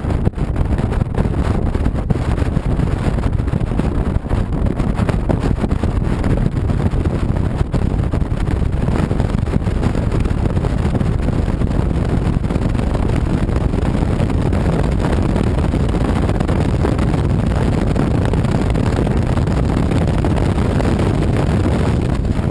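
Steady wind noise buffeting the microphone on a moving motorcycle, mixed with the motorcycle's engine and road noise.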